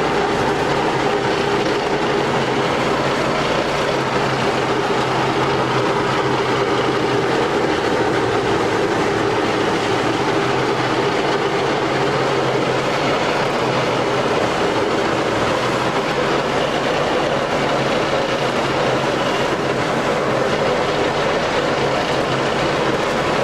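Tandem road roller's diesel engine running steadily, with mechanical clatter over the engine note.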